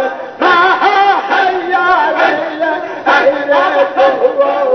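A large crowd of men chanting zikr together, loud repeated phrases in many overlapping voices, starting afresh after short breaths near the start and about three seconds in.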